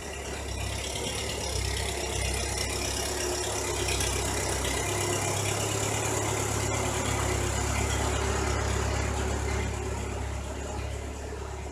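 A vehicle engine idling steadily, with a low hum that shifts slightly about five seconds in.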